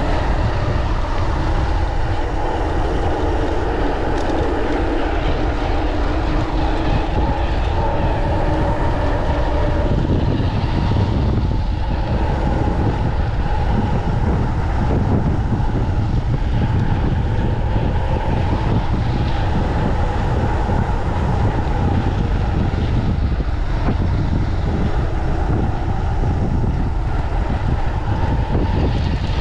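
Wind buffeting the microphone and the rolling rumble of a mountain bike ridden at speed, with a steady hum in the first third.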